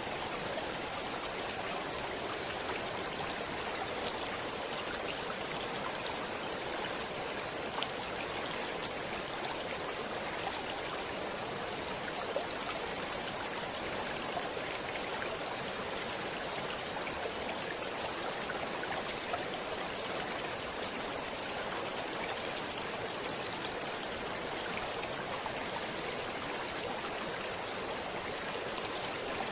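Steady rushing of a flowing stream or river over stones, with small splashes and drips now and then.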